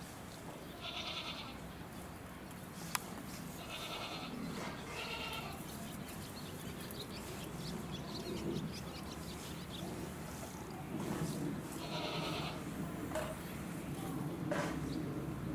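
Short bleating animal calls, four in all: one about a second in, two close together around four and five seconds, and one more around twelve seconds.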